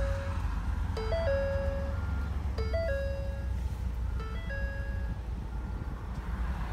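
A 2012 Ford F-150's dashboard warning chime sounding three times, about every second and a half, each a short three-note jingle ending on a held tone, over the steady low rumble of its 3.5-litre V6 idling in Park.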